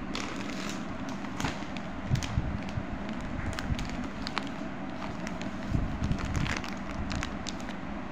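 Irregular crackling and rustling of clear plastic packaging being handled close to the microphone, over a low steady rumble.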